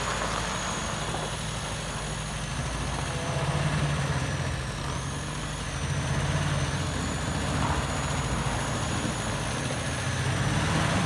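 GAZ M-20 Pobeda's four-cylinder side-valve engine running at low revs as the freshly restored car creeps forward under its own power, the engine note swelling a little a few times.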